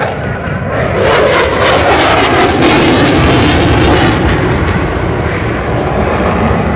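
Eurofighter Typhoon's twin EJ200 jet engines at high power as the fighter passes close. The noise swells about a second in, is loudest for about three seconds with its pitch falling, then eases off.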